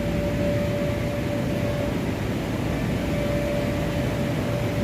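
Electric air blowers keeping inflatable bounce houses and slides up, running with a steady rush of air and a held hum.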